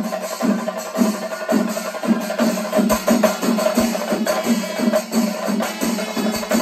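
Chenda melam: a large group of chenda drums beaten with sticks in unison, a pulsing beat of about two strokes a second under a steady metallic ringing.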